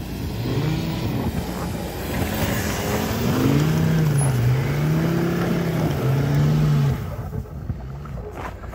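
Volkswagen Touareg's engine revving under load in deep snow, its pitch rising and falling several times as the wheels spin; the revs drop away sharply about seven seconds in.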